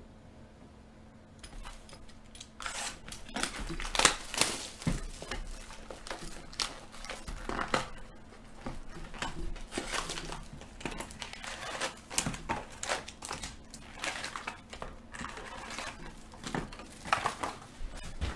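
Clear plastic shrink wrap crinkling and tearing as it is pulled off a box of hockey cards, then the cardboard box and foil card packs rustling as they are handled. Irregular crackles start about a second and a half in.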